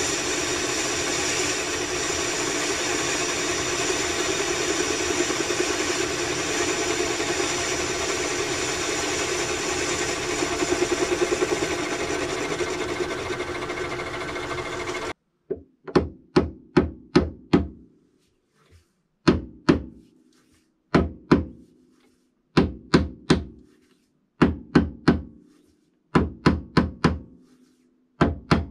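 Metal lathe running steadily while taking a light facing cut on a rough cylinder casting held on a mandrel. About halfway through the machine noise stops abruptly, followed by groups of two to five sharp knocks from a soft-faced mallet tapping the cylinder casting onto the mandrel as a drive fit.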